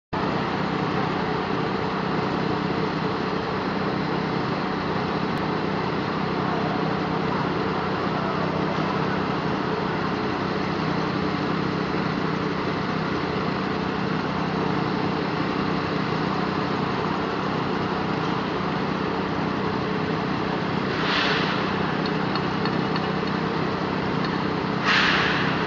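A small engine running steadily at a constant speed, with two short bursts of hiss near the end.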